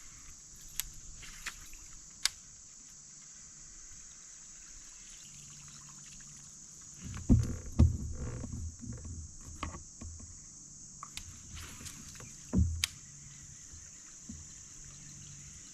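Steady high-pitched insect drone over a creek, broken by a few sharp clicks and by low thumps and knocks on a kayak's hull: a cluster about seven seconds in and another near the end.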